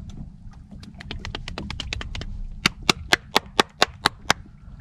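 Fishing reel's drag clicking as a hooked snapper pulls line off: a run of sharp clicks, about eight a second at first, then louder and slower at about four a second in the second half. The drag is set too loose, letting the fish take line toward the rocks.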